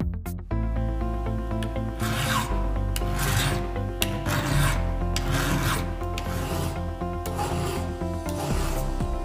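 Flat file rasping across a chainsaw chain's depth gauges in several strokes, filing them flush with a depth-gauge tool, starting about two seconds in.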